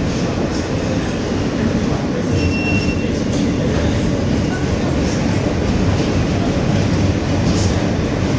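New York City subway R train running at speed, heard from inside the car: a steady, loud low rumble of wheels on track, with a brief high squeal about two and a half seconds in.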